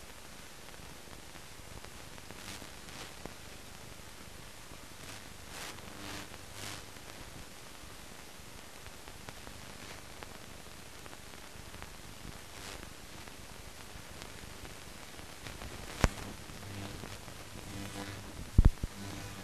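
Steady hiss of a silent newsreel soundtrack, with a sharp click about two-thirds of the way through and another near the end; faint low tones creep in just before it ends.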